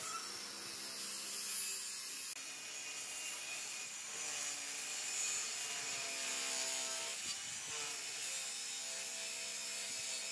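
Handheld Maktec circular saw running under load, its blade cutting through a thick wooden plank with a steady, even sound.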